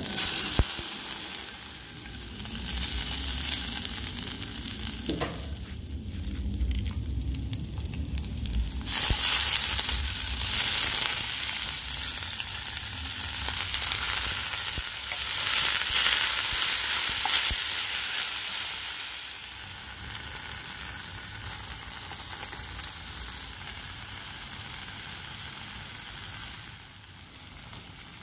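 Garlic and chilli, then green vegetables and crown-tipped coral mushrooms, sizzling in hot oil in a wok as they are stir-fried. The sizzle grows suddenly louder about nine seconds in and settles to a quieter, steadier hiss over the last several seconds.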